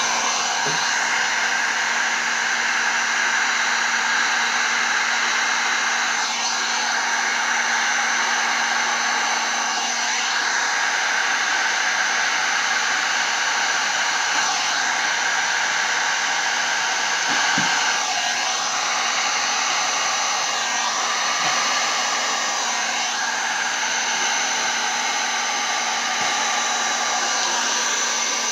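Electric heat gun running steadily, its fan and motor blowing hot air over wet resin, with the tone dipping briefly several times as the nozzle moves across the surface.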